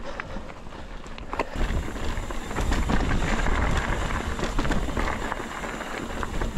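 Mountain bike riding over a rocky gravel trail: tyres crunching over loose stones and the bike rattling, with wind rushing on the microphone. The noise grows louder about a second and a half in, with scattered sharp clicks.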